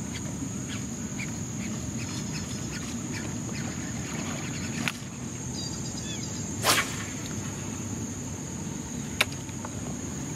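Outdoor pond-side ambience with insects buzzing steadily at a high pitch and small scattered chirps and clicks. About two-thirds of the way in, a short swish as a fishing rod is cast.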